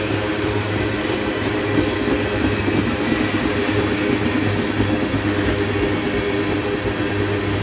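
Freight train tank cars rolling past: a steady rumble of steel wheels on the rails, with some clickety-clack.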